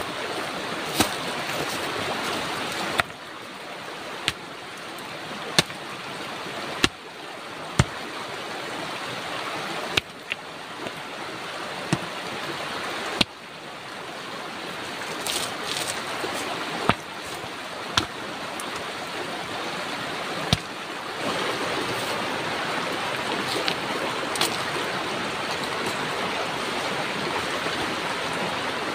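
Steady rush of a shallow, rocky river, with a sharp click or knock every second or two.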